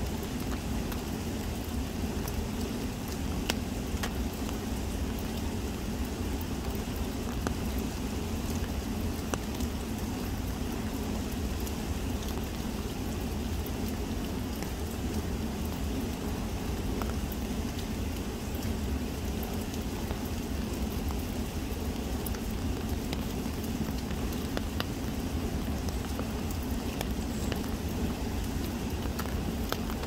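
Steady light rain falling, with scattered individual drops ticking, over the even low rush of the river's flowing water.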